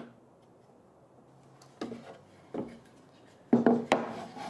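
Wooden boards being handled and fitted by hand: two light wooden knocks about two seconds in, then a louder scrape and clatter of wood on wood near the end.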